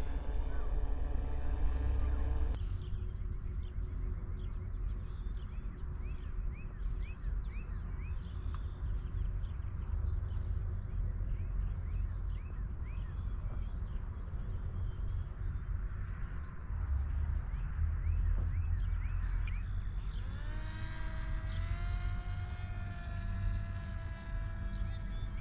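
Wind rumbling on the microphone, with faint repeated small bird chirps. About twenty seconds in, a whine rises in pitch and then holds steady, the Multiplex EasyStar's electric pusher motor being throttled up.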